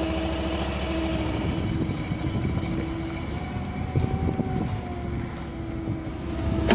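Crawfish boat's engine running steadily, with splashing and rattling about four seconds in as a wire crawfish trap is pulled out of the water, and a sharp click at the very end.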